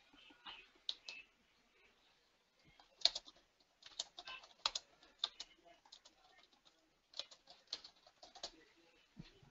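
Faint computer keyboard typing: irregular key clicks in short runs with pauses between them.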